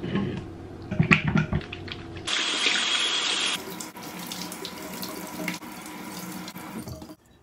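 A few clicks from a hand soap pump, then a kitchen tap running into a stainless steel sink as hands are washed under it. The water stops suddenly just before the end.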